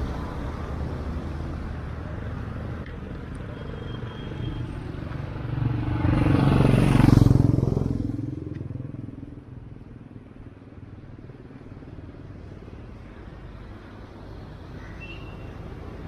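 A motor vehicle passes close by, swelling to a peak about seven seconds in and fading away within a couple of seconds, over a steady street background.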